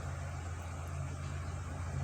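Steady low machine drone with an even hiss over it, unchanging and without knocks or bangs, like a heavy engine or large motor running continuously.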